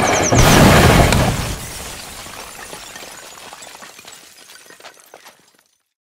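A sudden loud blast with crashing and breaking noise, heaviest in the first second or so, then dying away with scattered crackles over about five seconds before cutting to silence.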